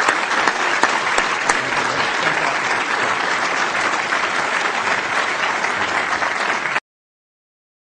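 An audience applauding steadily in a lecture hall, a dense patter of many hands clapping. It cuts off abruptly about seven seconds in.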